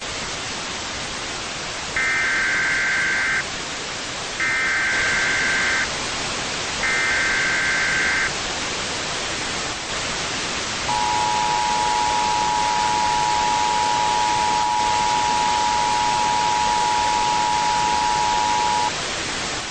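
Emergency Alert System signal over a steady static hiss: three short bursts of warbling digital header tones, then the two-tone attention signal held steady for about eight seconds.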